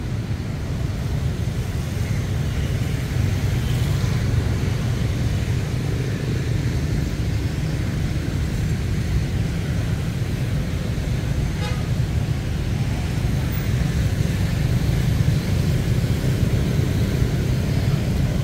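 Road traffic passing on a city street: a steady, continuous rumble of vehicles going by.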